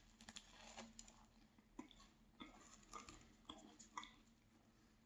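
Faint chewing of a light, fluffy chocolate pastry: soft wet mouth clicks every half second or so.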